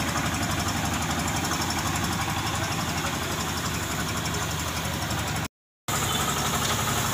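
Engine idling steadily with a fast, even throb. The sound cuts out completely for a moment about five and a half seconds in, then the engine noise resumes.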